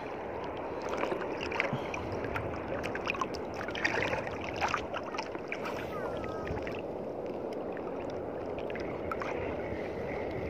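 Sea water lapping and sloshing close to the microphone, a steady wash of small waves with scattered little splashes and clicks.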